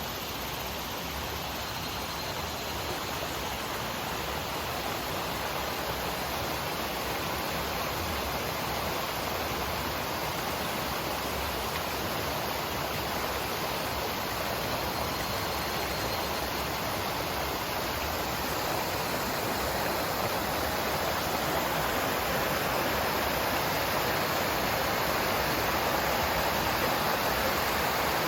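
Clear mountain stream flowing over rocks in a valley, a steady rush of water that grows slightly louder over the stretch.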